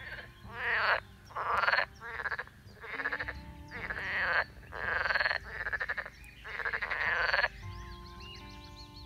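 Frogs croaking from the pond: a run of loud, rapidly pulsed calls, each under a second, one after another, stopping about three-quarters of the way through.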